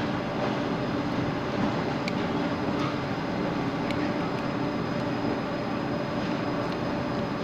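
Steady background hum and rumble, with a few faint clicks of a screwdriver working the screws of a terminal block.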